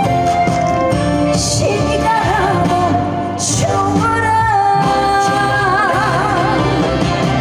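A woman singing a trot song with heavy, wavering vibrato over amplified backing music, with two sharp crash-like hits, about one and a half and three and a half seconds in.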